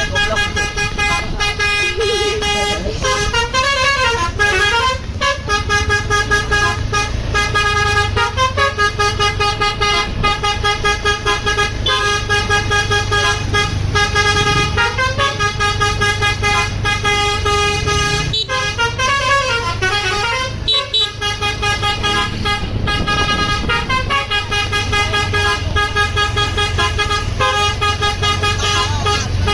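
Bus 'basuri' telolet musical horn playing a fast multi-note tune of short repeated notes, with a couple of warbling up-and-down sweeps. A low steady engine rumble runs underneath.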